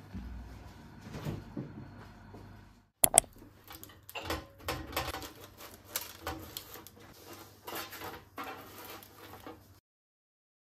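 A run of light, irregular clicks and knocks of things being handled, starting with a sharp click about three seconds in; the sound cuts off abruptly near the end.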